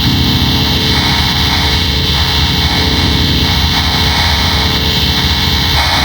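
Loud, heavily effect-processed and distorted audio: a dense, steady droning wash with many held tones over a fluttering low rumble.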